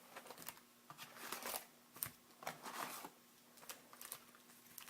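Faint rustling and light clicks of trading-card packs and their cardboard box being handled, in a few short spells with quieter gaps between.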